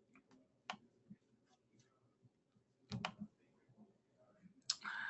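A few computer mouse clicks in a quiet room, the loudest a quick pair about three seconds in. Near the end comes a breath into the microphone that fades out over about a second.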